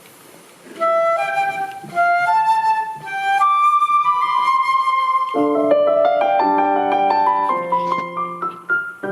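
Live instrumental song intro: a melody of clear held notes with a flute-like tone begins about a second in, and fuller, lower piano chords join about five seconds in.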